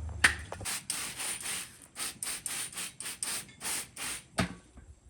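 Mortar being worked with a tool, a run of quick scraping strokes about two to three a second, as too-dry mortar is mixed with added water. The first stroke, about a quarter second in, is the loudest.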